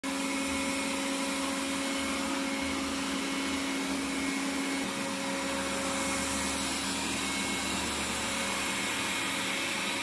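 Xiaomi robot vacuum cleaners, a Mi Robot Vacuum Mop P and a Mijia 1C, running on a hard laminate floor: a steady motor whir whose tone shifts about halfway through.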